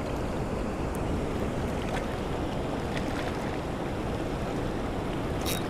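Steady rush of high water pouring down a concrete spillway and through the current below it, with a few light clicks near the end.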